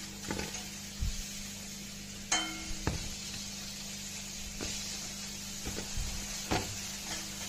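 Scattered knocks and clinks of baked litti being handled on a metal baking tray, with one sharp, ringing metallic clink about two seconds in. Under them runs a steady hum and hiss from the electric oven.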